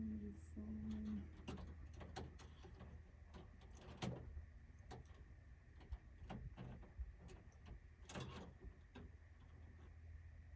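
Faint, scattered clicks and light knocks of hands handling automotive wiring and tape, with a slightly longer rustle about 8 seconds in, over a low steady hum. A short, low, steady tone sounds in the first second.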